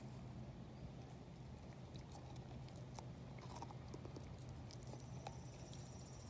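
A dog gnawing on a raw marrow bone: scattered faint clicks and scrapes of teeth on bone over a steady low hum.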